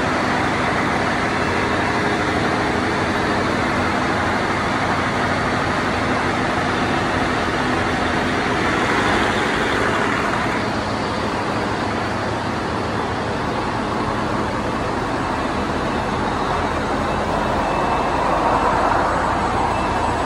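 Ship's engine-room machinery running: a loud, steady din with a few faint steady hums underneath. The higher hiss eases about halfway through and swells again near the end.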